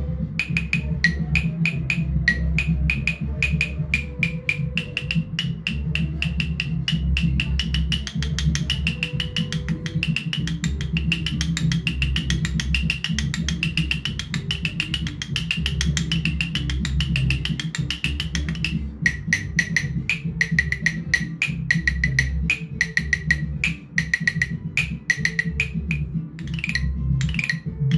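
A small wooden mallet tapping the bamboo pipes of a pan flute in a fast, even rhythm, each tap a hollow, pitched knock, with the pitch dropping about two-thirds of the way through. Underneath runs recorded Baka music with a steady low drum beat.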